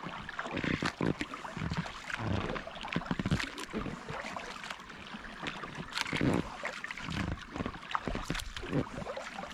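Kayak paddle strokes: the blades dipping into and pulling through calm water, with splashes and drips in an irregular run.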